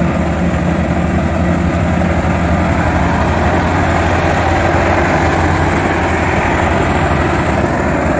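Tracked rice combine harvester's diesel engine running steadily under load, a continuous even drone.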